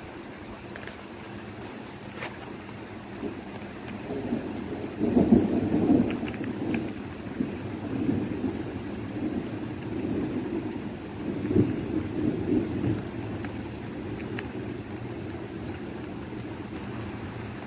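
Steady rain falling on pavement, with a long roll of thunder that builds about five seconds in, rumbles on in several swells and dies away near the end.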